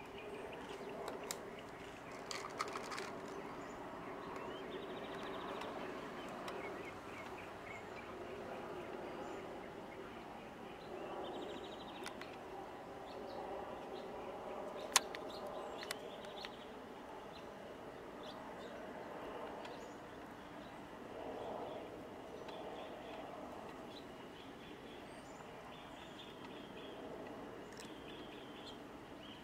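Wild birds chirping and calling over steady background noise, with one sharp click about halfway through.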